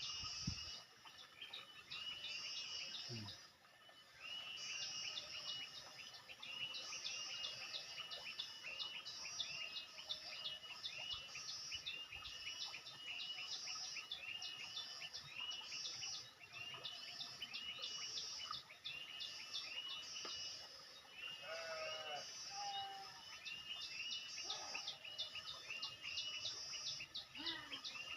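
Birds chirping without pause, many short high notes repeating several times a second, with a brief lull about three seconds in. A few lower calls come in around two-thirds of the way through.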